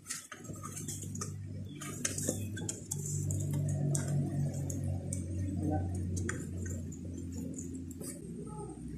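Open wood cooking fire burning: scattered crackles and snaps over a steady low rumble of flames, with a few knocks as pieces of split firewood are laid onto the fire.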